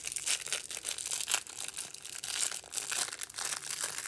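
Plastic packaging of a small squishy toy crinkling and rustling in the hands as it is opened, a quick, irregular run of crackles.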